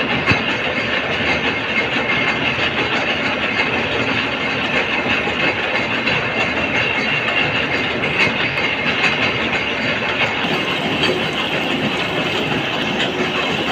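Gear-cutting machine running steadily, a continuous metallic clatter of many fine rapid ticks.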